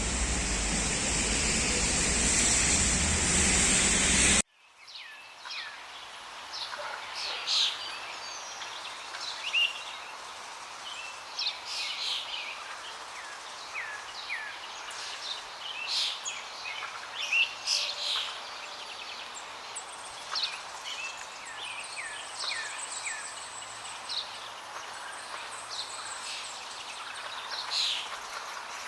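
Loud, steady rushing of a waterfall cuts off abruptly about four seconds in. After that, quieter forest ambience with many small songbirds chirping and singing: short calls and quick downward-sliding whistles, overlapping throughout.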